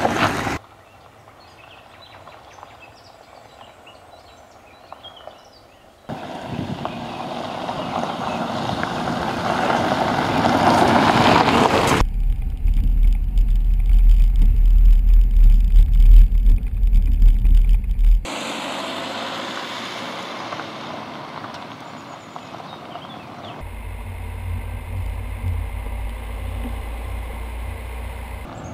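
Fiat 500L Trekking driving in a series of cut shots. After a short quiet stretch, its engine and tyre noise swell as it comes closer. A heavy low rumble of wind on the microphone follows while the car drives toward a moving camera, then steadier running noise.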